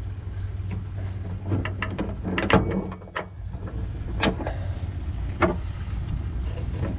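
Several sharp clinks and knocks scattered through, from galvanized anchor chain being handled on an aluminum boat while line is knotted to it, over a steady low hum.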